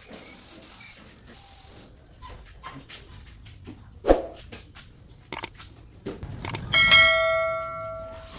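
Scattered clicks and knocks from handling tools and material, a sharp knock about four seconds in, then a metal object struck about seven seconds in that rings on and fades over more than a second.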